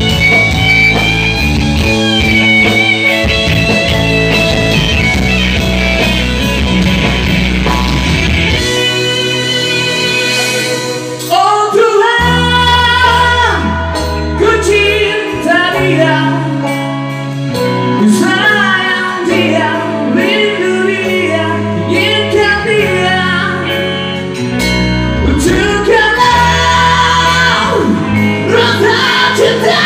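Live rock band playing through amplifiers: electric bass and electric guitar with keyboard, and a sung melody line. The bass drops out for a couple of seconds about ten seconds in, then comes back.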